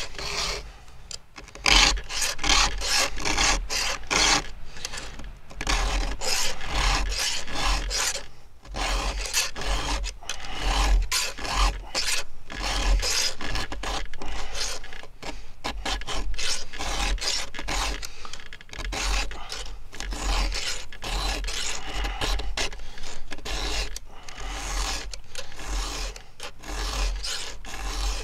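Round chainsaw file rasping across the steel cutters of a 3/8-pitch chain, hand-sharpening it in quick repeated strokes, with a few short pauses between runs of strokes.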